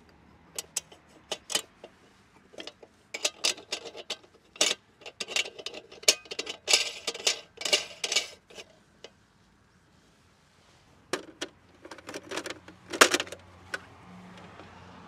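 A chef's knife chopping fat into cubes on a wooden cutting board: irregular runs of sharp knocks and clicks, with a pause of about two seconds in the middle before a second shorter run.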